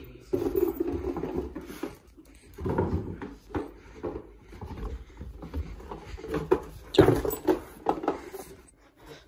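A small dog worrying a cardboard box in its mouth, the box scuffing and knocking against the floor along with the dog's paws. The sounds come in uneven bursts with short pauses.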